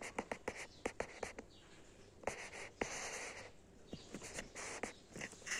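Cat chewing food from the floor: a quick run of small clicks at first, then scattered clicks with a few brief scratchy noises.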